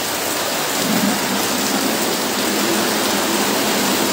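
Heavy rain falling steadily, a dense even hiss, with a faint low hum joining about a second in.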